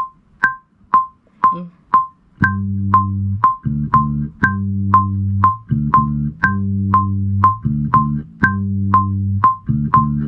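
GarageBand's metronome clicking two beats a second, with a higher accented click on every fourth beat. About two and a half seconds in, a Kala ukulele bass, played through an iRig HD2 interface and a bass amp plug-in, comes in with held low notes in time with the click.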